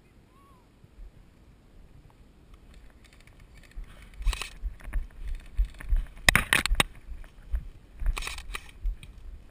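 Dry dune shrubs rustling and scraping against a player's gear as he pushes through the brush, with footfalls in sand. It starts about four seconds in as irregular crackling brushes, loudest a little past the middle.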